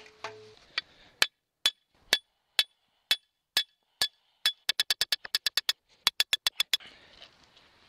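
Hammer striking the top of an iron ground stake, metal on metal with a bright ring: steady blows about two a second, then two fast runs of quick strikes after about four and a half seconds.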